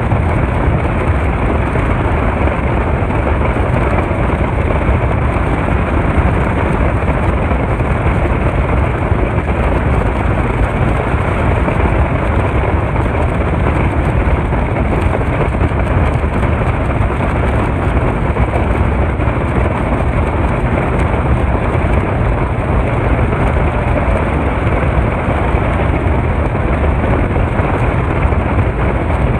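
Speedboat running flat out on a river: a steady, unbroken noise of its engines and hull on the water, with wind buffeting the phone's microphone.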